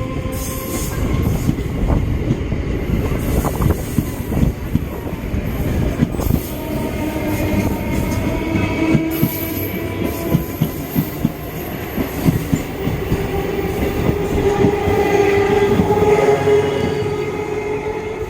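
Electric multiple unit (EMU) local train passing at speed, its wheels clattering rapidly and continuously over the rail joints. Steady tones grow louder in the second half.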